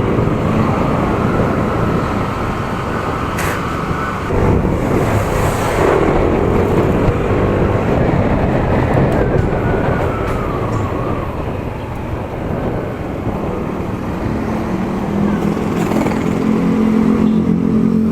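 Motorcycle on the move in road traffic: its engine running under a dense, steady rumble of road noise, with other vehicles around.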